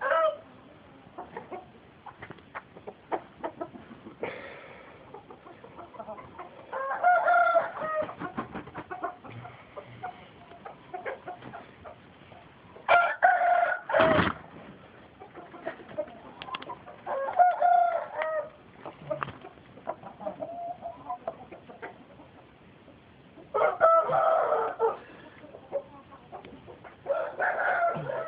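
Roosters crowing, about five crows spaced roughly every five seconds, with short clucks in between.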